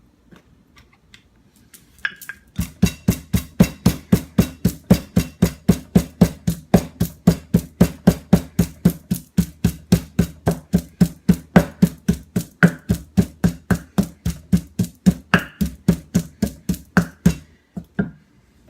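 Chili peppers being smashed with steady, heavy pounding strokes, about four a second. It starts after a few light taps and stops shortly before the end.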